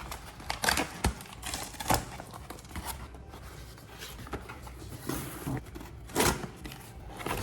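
Hands opening and handling small product packaging: irregular clicks, taps and scrapes of a cardboard and plastic box, with a louder handful of knocks about five to six seconds in.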